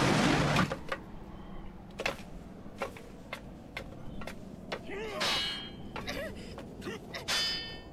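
Anime sound effects: a loud rushing noise that fades out about half a second in, then sparse light clicks and two brighter metallic clinks, as a hooded figure creeps across slate roof tiles.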